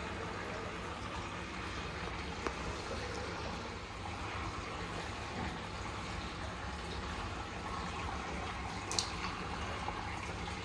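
Steady trickle of water running into a large fish tank's surface. There are two brief sharp splashes or ticks, one about two and a half seconds in and one near the end.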